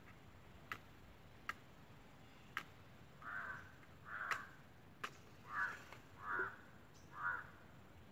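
Crows cawing, five short caws in the second half, with several sharp scratches of matches struck on a matchbox in between; the loudest is a match strike a little past four seconds in.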